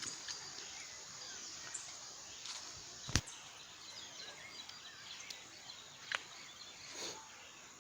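Faint bird chirps over a soft, steady outdoor hiss, broken by a sharp click about three seconds in and another about six seconds in.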